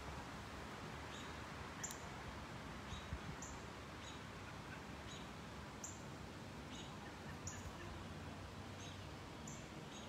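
Small birds chirping now and then, about ten short high chirps, over a faint steady outdoor hiss.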